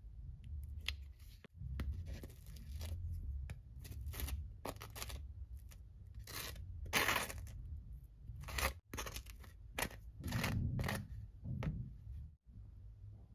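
Metal spoon scooping cream cheese from a tub and spreading it across crisp toasted bread: a run of short, irregular scraping strokes.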